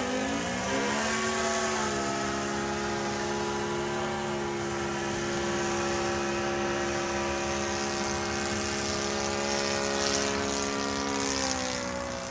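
Saito 100 four-stroke glow engine on a Phoenix Katana 61 RC model plane running in flight, its propeller drone rising in pitch over the first two seconds, holding steady, then sagging slightly near the end.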